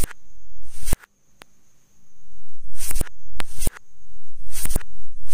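Electric mosquito racket zapping mosquitoes: a series of loud, sharp snaps from the charged wire grid arcing, about eight in all, several of them coming at the end of a crackle that builds for under a second. A faint steady high whine runs underneath.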